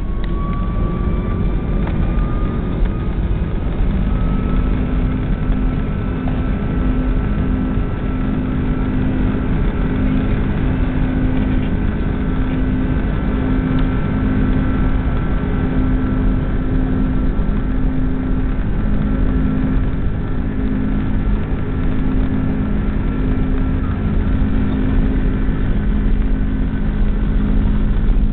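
Airliner jet engines at high thrust for takeoff, heard from inside the cabin: a loud steady rumble and rushing noise with an engine whine that rises in pitch over the first few seconds, then holds steady.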